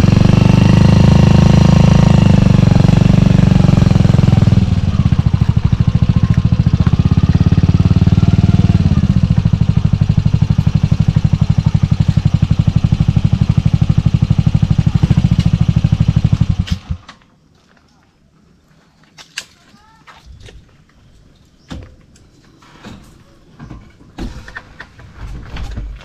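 Honda TMX125 Alpha motorcycle's single-cylinder engine running at low speed, rising and falling gently in pitch a couple of times, then cut off about two-thirds of the way through. Afterwards only faint clicks and knocks remain.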